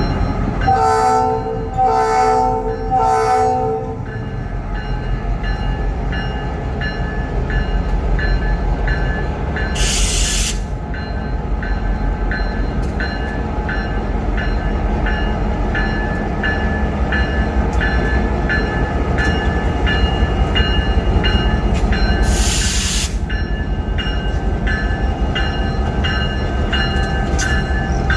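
Diesel locomotive horn sounding three short blasts, the standard signal for backing up, followed by the locomotive's steady diesel rumble with regular clicking. Two sharp bursts of air hiss come about ten seconds in and again around twenty-two seconds.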